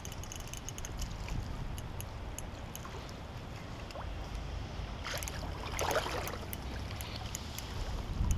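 Shallow water splashing as a hooked common carp is drawn up to the bank and thrashes, loudest about five to six and a half seconds in, over a low rumble of wind on the microphone.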